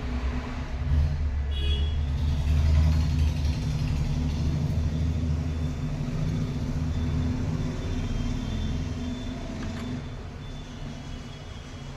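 A steady low rumble, louder through the first half and easing near the end.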